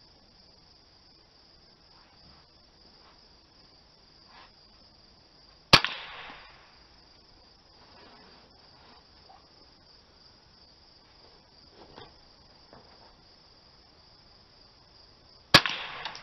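Two single shots from a Winchester Model 77 semi-automatic .22 LR rifle, about ten seconds apart, each a sharp crack with a short ringing tail.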